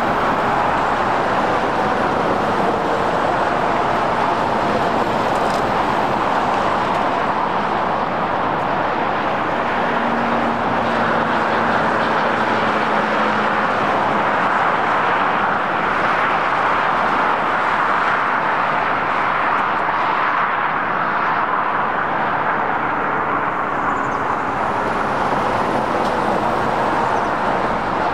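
Union Pacific rotary snow plow at work, a steady rushing roar as its rotating blade blows snow, with a faint low hum for a few seconds near the middle.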